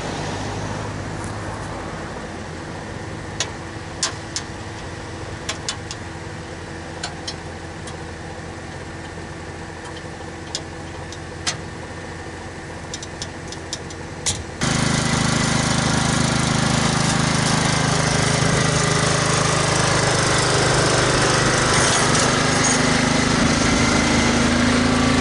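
Aluminium loading ramps clanking against a pickup's tailgate as they are set in place, a dozen sharp metallic knocks over a steady engine hum. About fifteen seconds in, a riding lawn mower's engine starts sounding loud and steady as it drives up the ramps, its pitch rising a little near the end.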